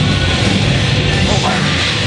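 Loud, steady heavy rock music on the soundtrack.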